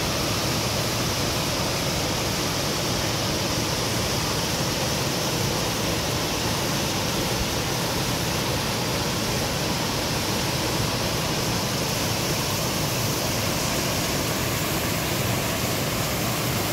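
Waterfall and stream water pouring over rocks into a pool: a steady, even rush of water.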